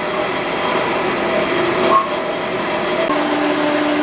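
Horizontal metal-cutting bandsaw running, its blade cutting through the quarter-inch steel wall of a CO2 tank. The sound is steady, with a lower steady tone joining about three seconds in.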